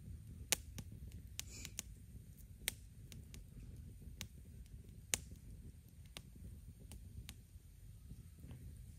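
Wood fire crackling in a fire pit: irregular sharp pops and snaps, the loudest about half a second in and just after five seconds, over a low steady rumble.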